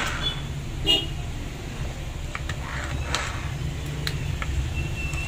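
Hand tools clicking and tapping against a Makita HR2470 rotary hammer's chuck and housing as it is worked on: a handful of separate sharp clicks, the loudest about a second in, over a steady low hum.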